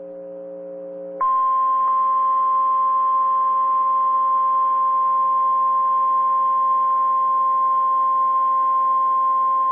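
NOAA Weather Radio warning alarm tone: a single steady 1050 Hz tone comes on sharply about a second in, after a low radio hum, and holds unchanged and loud. It is the alert that signals a warning broadcast, here a tornado warning, is about to be read.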